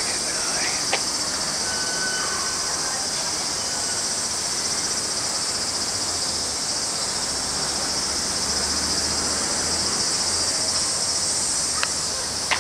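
A chorus of cicadas, a steady high-pitched buzzing drone that does not let up, over a low steady rumble.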